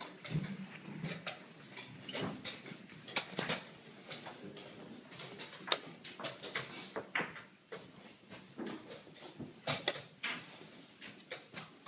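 Chess pieces knocking down on the board and chess clock buttons being slapped in the quick back-and-forth of a blitz game: a string of sharp, irregular clicks and clacks, roughly one or two a second.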